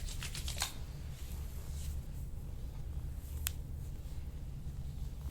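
A quick run of small crackling clicks, then a single sharp click about three and a half seconds in, during hands-on chiropractic work, over a steady low hum.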